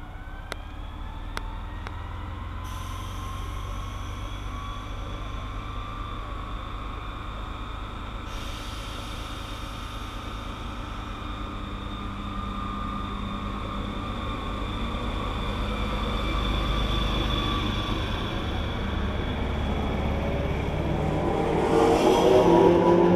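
SNCF Z 6400 electric multiple unit pulling away, its traction motors whining in several tones that rise steadily in pitch as the train gathers speed, over a low rumble. It grows louder as the cars roll past, with a stronger burst of rising motor whine near the end.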